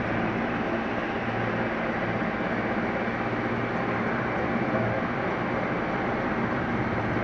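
Mi-8 helicopter hovering, a steady drone from its twin turboshaft engines and rotors.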